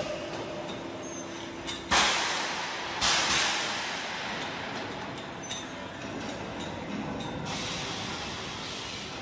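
Foundry pouring-line noise: steady machinery noise, with two sudden loud hisses about two and three seconds in, each fading over about a second, and another hiss starting near the end.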